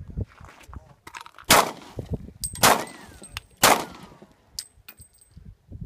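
Three pistol shots from a Smith & Wesson M&P40c compact .40 S&W handgun, about a second apart.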